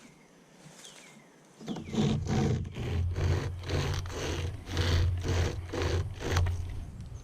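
36-inch pocket chainsaw, a hand-pulled chain blade, cutting through a hardwood limb. It rasps in quick back-and-forth strokes, about two to three a second, starting about two seconds in and stopping near the end.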